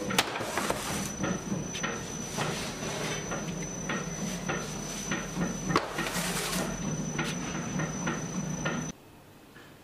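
Workroom noise in a bakery: a steady machine hum with a thin high whine, under repeated clatter and knocks. It cuts off abruptly near the end, leaving a faint hiss.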